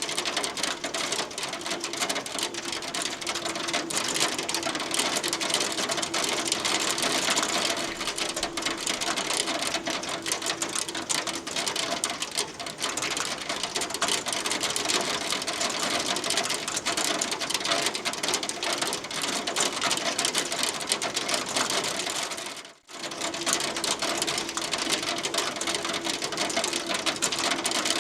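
Hail falling steadily, a dense continuous pattering of small hailstones striking a hard surface. The sound drops out for a split second about three-quarters of the way through.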